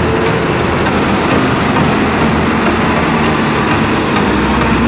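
Diesel engine of a sand-laden dump truck running as the truck drives slowly, a steady drone.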